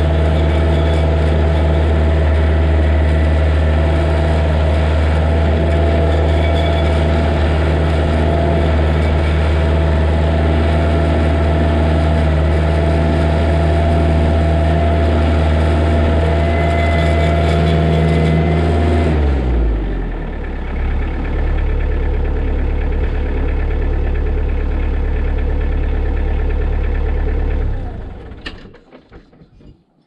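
Kioti tractor's diesel engine running steadily at working speed, then winding down to a lower idle about two-thirds of the way through, and shut off near the end.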